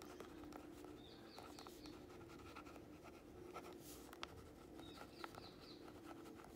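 Pen writing on a lined paper index card: faint irregular scratching and small squeaks of the nib over a low steady hum.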